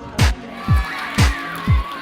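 Background music with a steady beat: a deep kick drum about twice a second and a sharper snare-like hit once a second, under a wavering melody.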